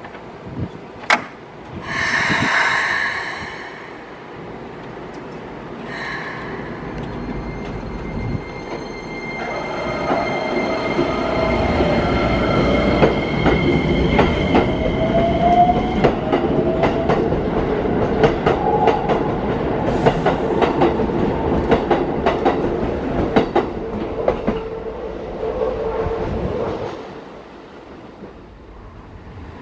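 Keikyu 1000 series electric train departing: a short hiss about two seconds in, then the traction motors' whine rising in pitch as it accelerates, over wheels clattering on the rail joints. The sound fades out as the train leaves, near the end.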